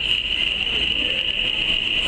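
A digital camera's zoom lens motor giving a steady, high-pitched whine as the lens zooms out, over a faint low hum of the room.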